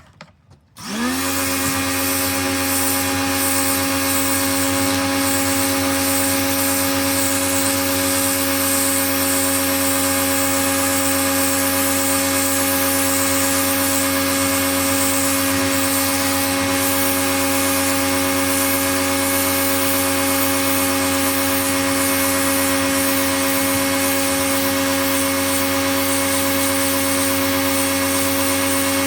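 Pro-Kleen 1600 pressure washer starting up about a second in, its motor spinning up quickly, then running steadily with a constant whine and hiss.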